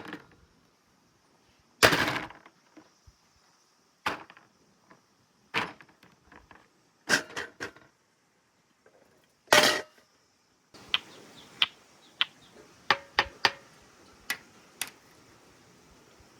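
Marbles clacking and rolling along a stainless steel marble run: separate sharp clinks every second or two, then a faint steady whirr with a quicker run of light ticks over the last few seconds.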